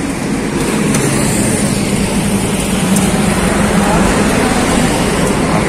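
Motorcycle engines running at idle: a steady low hum over street noise.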